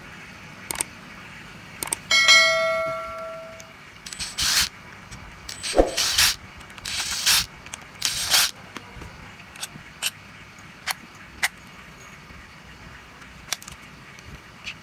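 Cordless drill/driver run in short bursts, about half a second each, backing screws out of a plastic Ni-Cd battery pack casing. A metallic ring about two seconds in is the loudest sound, and light clicks follow later.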